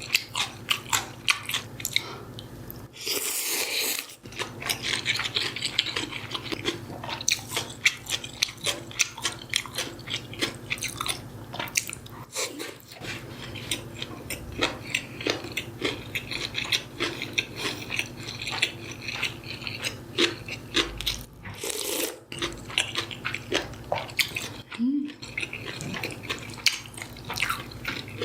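Close-miked eating sounds: rapid crunching and chewing of food, with two louder rushing bursts, one about three seconds in and one past twenty seconds.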